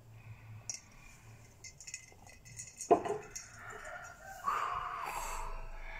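Small sipping clicks from drinking through a straw, then one sharp knock about halfway through as the plastic bottle is set down, followed by a breathy noise near the end.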